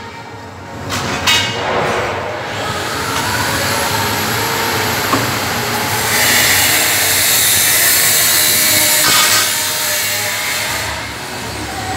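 Power tool running on steel: its whine climbs about two and a half seconds in, it runs harder and louder from about six to nine seconds, and it eases off near the end.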